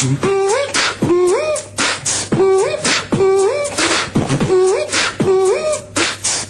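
Beatboxing: vocal percussion with sharp hissing snare- and hi-hat-like strokes in a steady rhythm, over a short hummed tone that slides upward in pitch about once a second.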